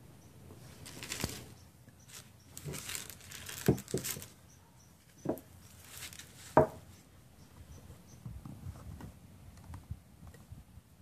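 Food-prep handling at a wooden table: plastic crinkling and rustling, with four sharp knocks between about three and a half and seven seconds in, the last one the loudest.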